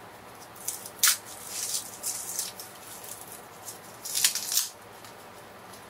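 Dry, papery garlic skin crackling and rustling as a clove is peeled by hand, with a sharp crack about a second in and another loud crackle about four seconds in.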